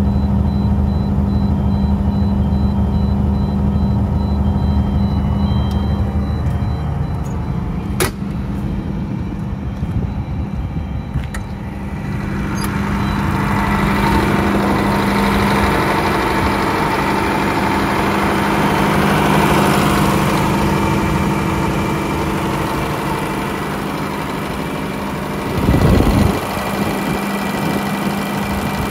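Scania DC12 59A inline-six diesel of a 350 kVA generator set running steadily at constant speed, a low hum with a steady tone. About twelve seconds in, after a sharp click, the sound grows louder and brighter as the soundproof canopy door is opened, and a short loud rush of noise comes near the end.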